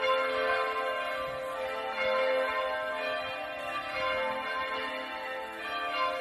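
Church bells ringing: several bells of different pitches struck again and again, their tones ringing on and overlapping, with fresh strikes about every two seconds.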